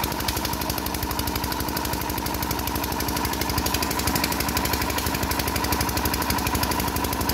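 A 10 HP diesel engine driving a 7.5 kVA generator runs steadily with a rapid, even beat and a faint steady whine. The owner says the engine is smoking heavily and cannot take much welding load, and that it needs repair.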